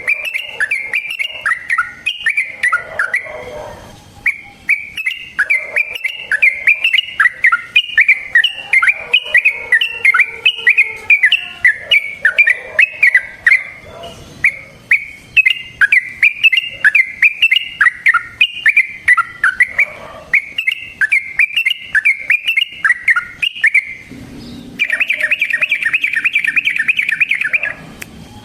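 Yellow-vented bulbul (trucukan) singing a long, fast chattering song of quick repeated notes, several a second. About 25 s in it changes to a denser, faster rolling trill.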